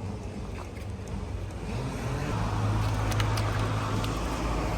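An engine running: it picks up speed about two seconds in, then holds at a steady higher speed.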